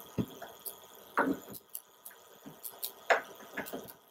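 A few irregular light knocks and scrapes from handling the DTX-2200 TIG welder's casing as its electrical connector is lined up with the water cooler's socket.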